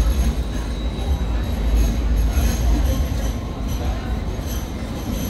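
Sydney light rail tram running along the street tracks: a steady low rumble with faint high-pitched tones coming and going, typical of tram wheels and motors.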